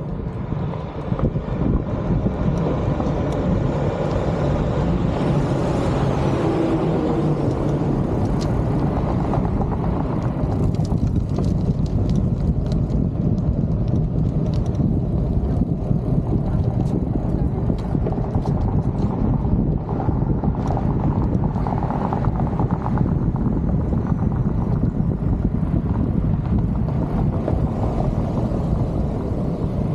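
Steady, loud wind rumble on the microphone of a camera moving along a city street, with road and traffic noise beneath it and a few faint clicks and rattles.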